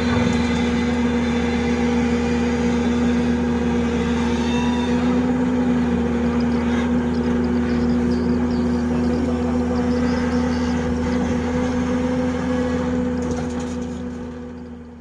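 Diesel engine of a heavy construction machine running at a steady speed. It fades away over the last couple of seconds.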